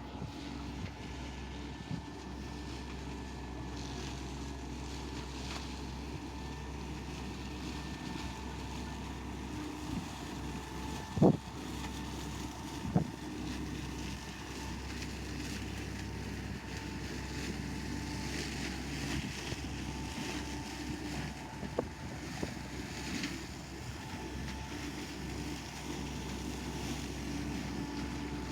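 Boat engine running steadily, with two sharp knocks near the middle.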